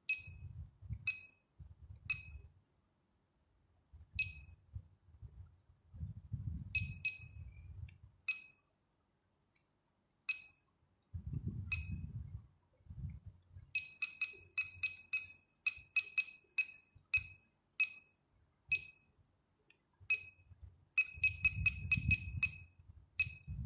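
70mai Dash Cam Pro beeping at each button press while its clock is being set: short electronic beeps, some about a second apart and others in quick runs of several a second about halfway through and near the end. Low handling bumps from the camera being held and pressed come in between.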